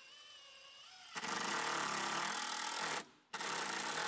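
Cordless impact driver driving a fastener into a wooden siding board: a faint motor whine, then about two seconds of rapid hammering under load, a short stop, and another burst of about a second.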